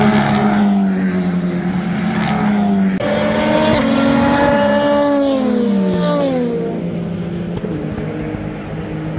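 Endurance race car engines at racing speed. The sound changes abruptly about three seconds in, and then a car's engine note falls in pitch as it goes past, settling lower near the end.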